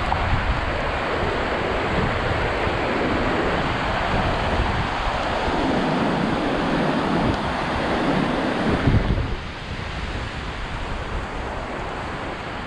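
Rushing water of a rain-swollen creek, a steady loud roar, with wind buffeting the microphone; it eases a little about nine seconds in.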